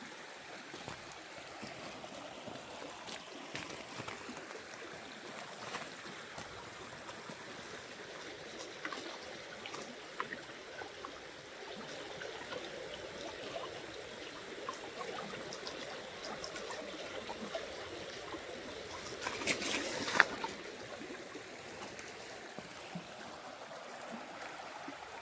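Small rocky creek trickling and babbling steadily, with a brief louder splash or clatter about three-quarters of the way through.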